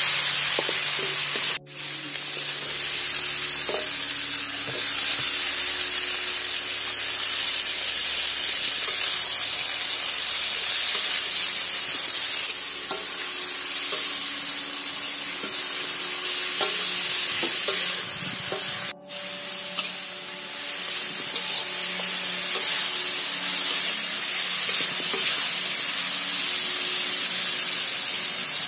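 Diced young papaya and spices sizzling as they are stir-fried in a wok, a metal spatula stirring and scraping through them. The sizzle cuts out briefly twice, about two seconds in and again past the middle.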